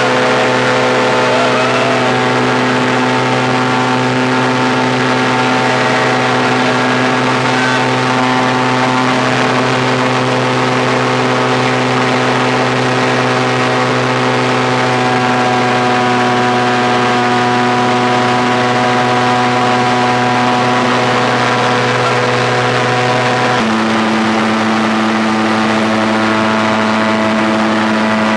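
Rans ultralight aircraft's engine and propeller running steadily at high power through the takeoff roll and climb-out, heard from inside the cockpit. Near the end its tone changes abruptly to a slightly lower pitch.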